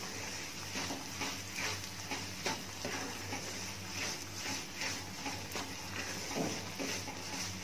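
Spatula scraping and pushing semolina through hot ghee in a kadhai, in faint, regular strokes about twice a second, over a light steady sizzle: the semolina being roasted in ghee on a low flame for halwa.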